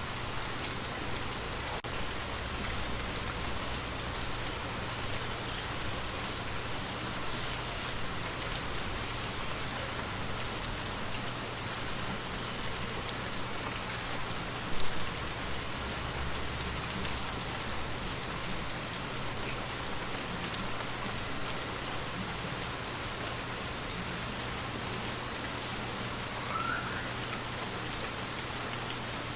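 Steady rain falling and pattering on surfaces, with one brief louder knock about halfway through.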